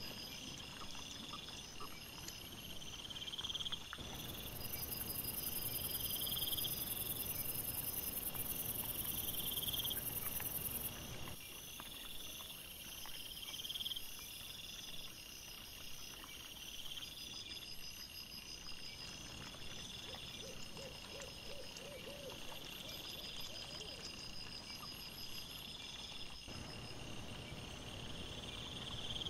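Crickets chirping in a steady run of repeated pulsed trills, with a short series of about six low hooting calls about two-thirds of the way through.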